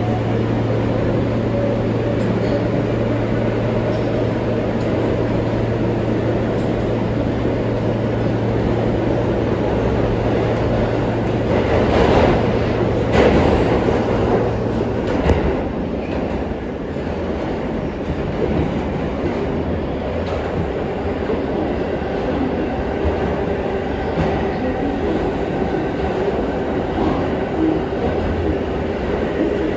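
R143 subway car in motion, heard from on board: steady running noise of wheels on rail. About twelve seconds in it grows louder for a couple of seconds, and a steady low hum stops about halfway through.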